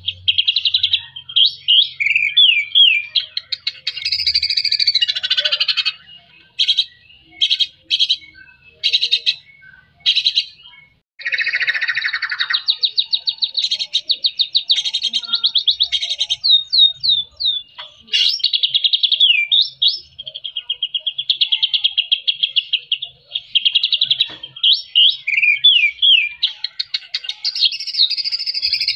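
Male white-rumped shama (murai batu) in full song: a long, varied run of fast trills, rapidly repeated notes and down-slurred whistles. From about six to eleven seconds in the song breaks into short separate phrases, then runs on without a break.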